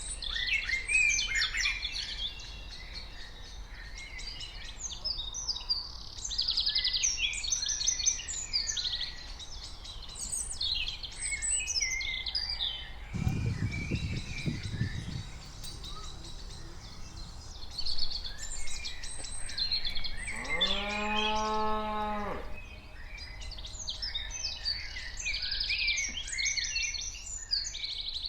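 Small birds chirping and singing almost throughout, with one cow mooing once for about two seconds, a rising then held call, about three-quarters of the way in. A short low rumbling noise comes about halfway through.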